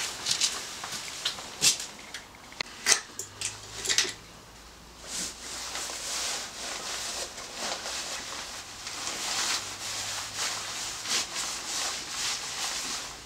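Handling noise: a few sharp knocks and clicks in the first four seconds, then uneven rustling of a nylon jacket as gloves are pulled on. The quad bike's engine is not running.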